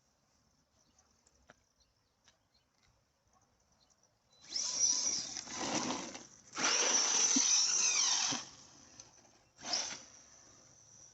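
Arrma Big Rock electric RC monster truck, on a 4S battery, driven in bursts: a few faint ticks at first, then about halfway in two loud whirring runs of a couple of seconds each, the second with a whine that rises and falls, and a short burst near the end.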